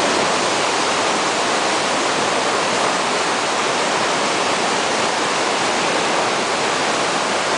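White-water rapids rushing over boulders in a mountain river: a steady, even rush of water that does not let up.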